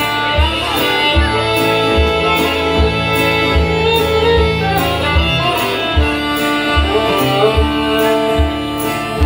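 Fiddle and strummed acoustic guitar playing an instrumental passage of an old-time country song, the fiddle carrying the melody. A low thump marks each beat, about every three-quarters of a second.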